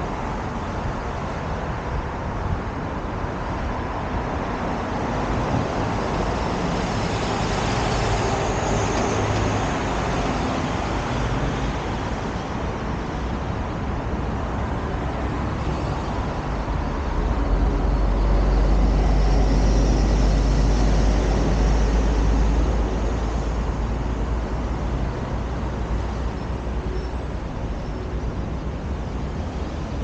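Road traffic on a city street: a steady wash of passing cars and buses, with a deeper, louder rumble swelling for several seconds past the middle.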